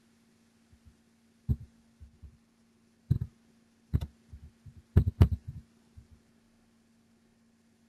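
Computer keyboard keystrokes as a Linux terminal command is typed: a handful of separate knocking strikes, the loudest two close together about five seconds in, over a steady low electrical hum.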